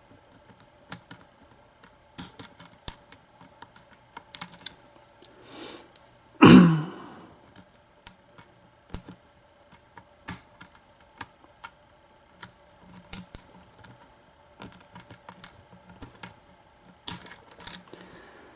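Lock pick and tension wrench clicking and scraping irregularly on the pins of a Defiant doorknob's pin-tumbler cylinder as it is picked. About six and a half seconds in comes a short low hum of a voice, falling in pitch, the loudest sound here.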